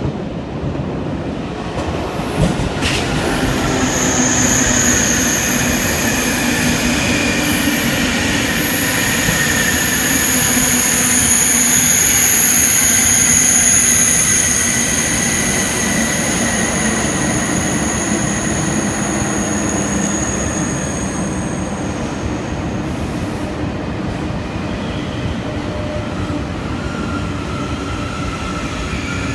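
TGV high-speed train pulling in along an underground station platform and braking: a steady rumble and rush of the train with a high-pitched brake squeal that fades out about three-quarters of the way through. The noise is loudest around the middle and eases as the train slows to a stop.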